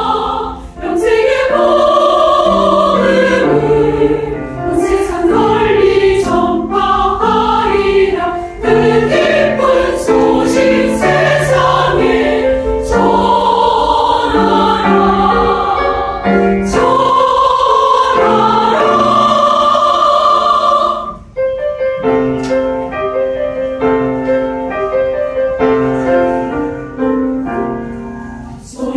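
Church choir singing a hymn-anthem in parts with accompaniment. About two-thirds of the way through, the voices stop and the accompaniment plays on alone, more softly.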